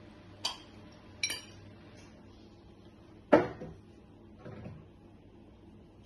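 Glass on glass: a wine bottle clinks twice lightly against a wine glass. Then comes a much louder knock a little past halfway and a softer one about a second later, as the bottle is set down on a hard surface.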